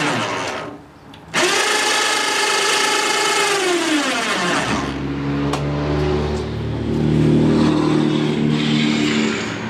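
Small two-stroke outboard motor running on a test stand. Its pitch falls as it slows, it drops away briefly about a second in, then comes back and slows again, settling into a lower, steady idle from about halfway.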